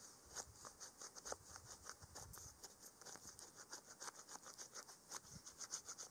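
Quick, faint run of light scratching strokes, about six a second.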